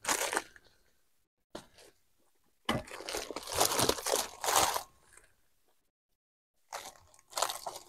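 Plastic packaging crinkling and rustling in several bursts, with short quiet gaps, as a wrapped bundle of fabric is cut open and handled.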